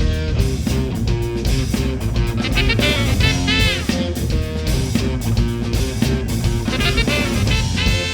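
Live rap-rock band playing an instrumental passage, led by guitar over a steady bass line, with notes that bend up and back down.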